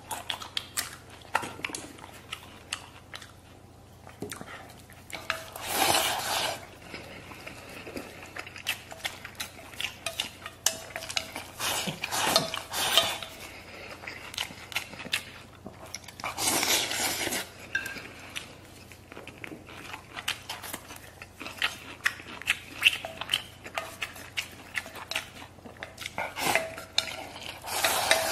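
Wooden chopsticks clicking and scraping against a metal bowl while rice and braised beef are eaten. There is chewing, and several louder stretches of food being shoveled from the bowl into the mouth.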